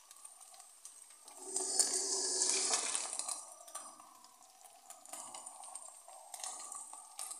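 Ground beef frying in a hot non-stick pan. About a second and a half in, liquid hits the pan and it hisses loudly for about two seconds, then settles back to a quieter sizzle.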